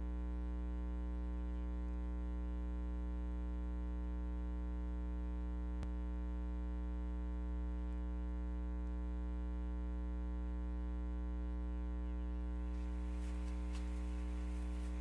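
Steady electrical mains hum, a low buzz with many evenly spaced overtones at a constant level. A faint click about six seconds in and faint rustling near the end.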